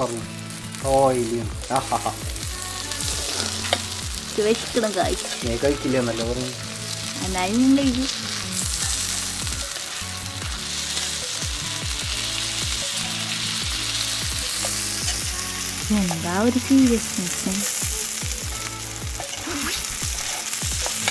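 Beef steaks sizzling steadily as they fry in melted butter in a black iron pan, with tongs and a metal spatula scraping and turning them. The sizzle grows louder about eight seconds in, and snatches of a melody come and go over it.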